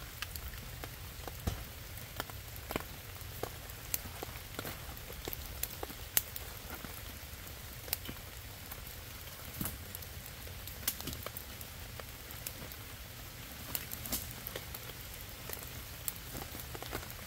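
Steady rain falling, an even hiss with irregular sharp ticks scattered through it.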